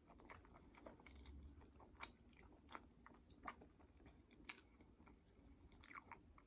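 Quiet close-mic chewing of cheesy breakfast enchiladas, a steady run of short wet mouth clicks and smacks.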